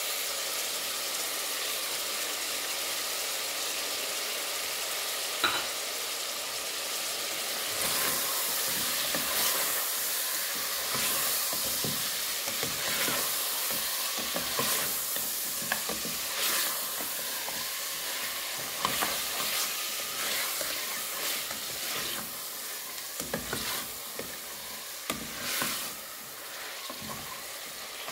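Mutton pieces and sliced onions sizzling in hot oil in a pressure cooker pot. From about eight seconds in, a spatula stirs them, with irregular scrapes and knocks against the pot over the steady sizzle.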